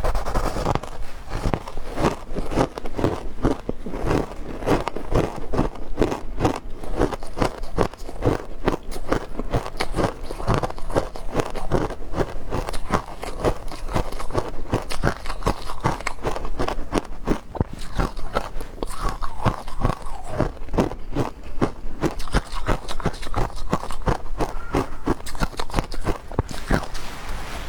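A person biting and chewing matcha ice: a continuous run of crisp crunches, several a second.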